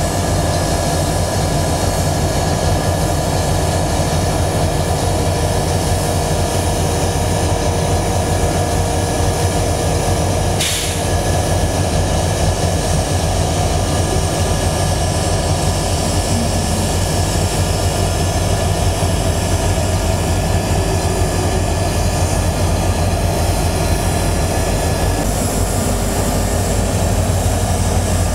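Diesel locomotives (CSX GP40-2s) running, a steady loud low engine rumble, with a single sharp clank about eleven seconds in.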